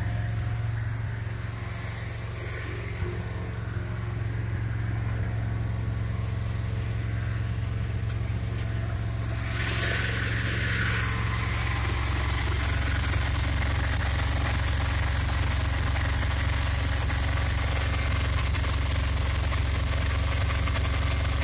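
1969 Dodge A100 van's 318 V8 idling steadily as it warms up after a cold start. It gets louder and hissier about halfway through.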